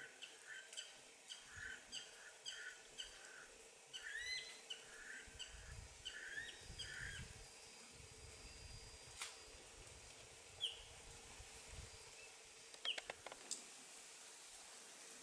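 Faint bird calls: a string of short chirps, about two a second, for the first seven seconds, then a few scattered calls and sharp ticks later on.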